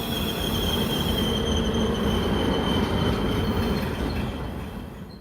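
Commuter train brakes squealing: a steady high-pitched squeal over a dense low rumble that cuts off suddenly near the end.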